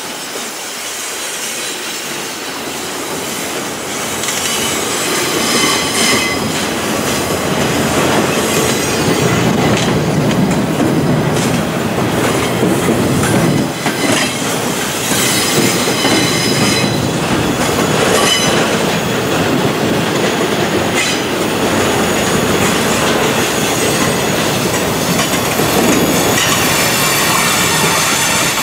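Double-stack intermodal well cars rolling slowly past, steel wheels on rail with a steady rolling noise, a thin high squeal and occasional clanks. It grows louder about four seconds in.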